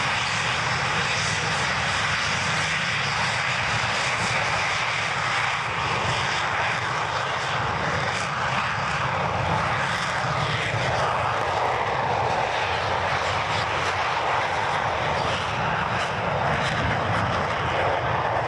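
Several Aermacchi MB-339 jet trainers running their engines on the ground: a steady, dense jet noise with a thin high whine held on top.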